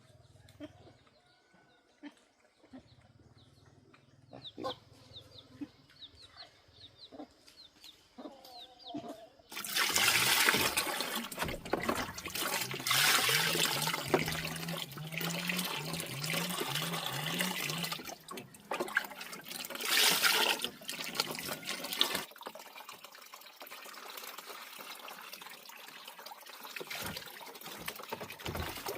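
Water splashing and running. It starts suddenly about a third of the way in, is loud for several seconds, then eases to a softer trickle near the end.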